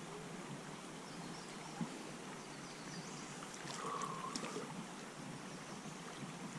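Creek water lapping and trickling softly around a float tube as it drifts, with a faint short tone about four seconds in.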